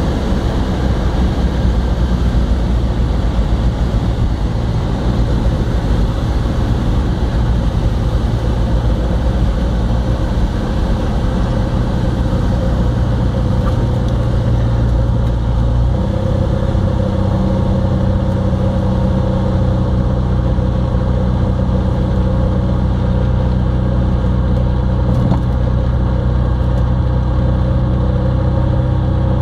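Savannah XL light aircraft's propeller engine running steadily at low power as the plane taxis after landing, heard from inside the cockpit. The engine note changes a little over halfway through, then holds steady.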